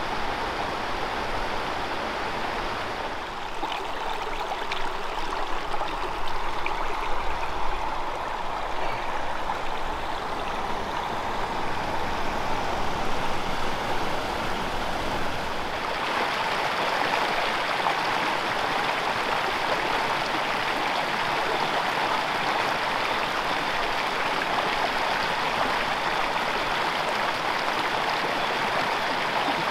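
Water of a small freestone mountain stream rushing steadily over rocks. The rush changes abruptly about three seconds in and again about halfway through.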